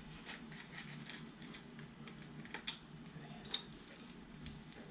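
Light, irregular clicks and taps of a workpiece being slid and adjusted between machine vise jaws, over a faint steady low hum.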